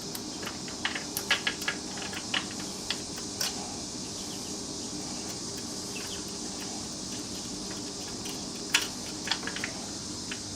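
Light metal clicks and taps as screws and saw-mount hardware are handled and fitted, in two clusters: about one to three and a half seconds in, and again around nine seconds. A steady hum runs underneath.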